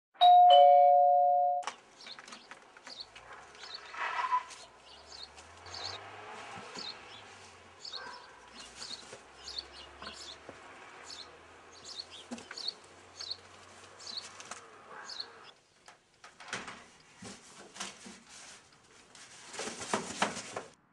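Two-tone ding-dong doorbell chime near the start, a higher note falling to a lower one. It is followed by quieter background sounds with repeated short high chirps.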